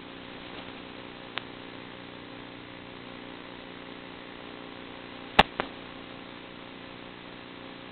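Steady hiss with a low hum, as heard over an analog FPV video link's audio channel. A single sharp click comes about a second and a half in, and two louder clicks come close together near the middle.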